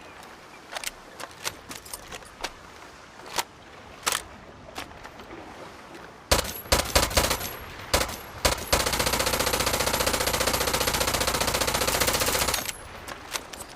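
PPSh-41 submachine gun firing a few short bursts, then one long burst of rapid automatic fire lasting about four seconds. Light clicks come before and after the firing.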